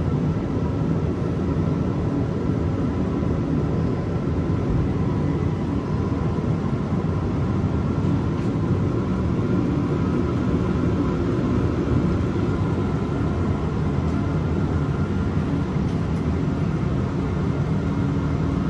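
Chinese-made diesel air heater running on kerosene just after firing up, giving a steady low rumbling roar from its burner and blower with a faint steady whine over it.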